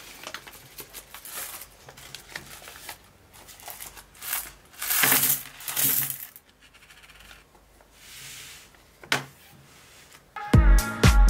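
Metal coins clinking and clattering as they are poured into a small paper box, in a run of small clicks with a few louder rushes of coins in the middle. Electronic music starts again near the end.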